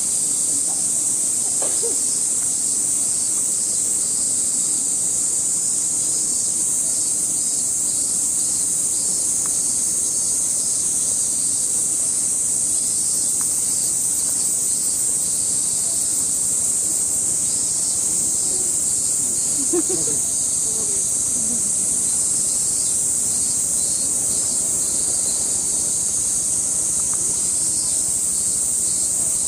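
A chorus of summer cicadas: a continuous, high-pitched hiss that holds steady throughout.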